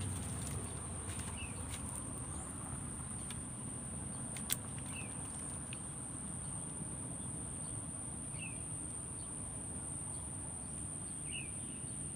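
Steady high-pitched insect drone, with a short chirp every three to four seconds and a single sharp click about four and a half seconds in, over a low background rumble.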